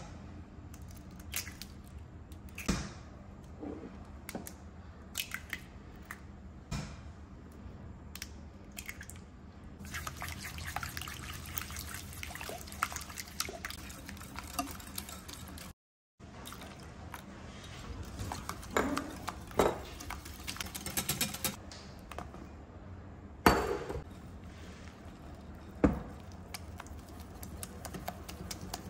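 Eggs cracked and dropped into a glass bowl, then a wire balloon whisk beating them with sugar and melted butter: wet sloshing with the wires clicking against the glass. There are two sharper knocks near the end.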